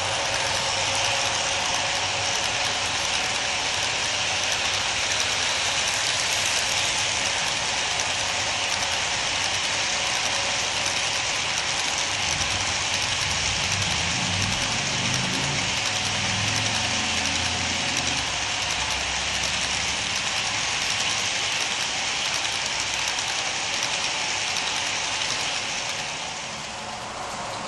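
HO-scale model freight cars rolling past close by: a steady rolling noise of the cars' wheels on the track, which drops a little near the end as the train passes.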